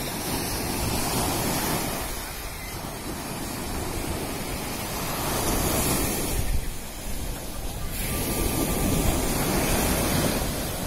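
Small sea waves breaking and washing up a sandy shore in slow swells, with wind rumbling on the microphone.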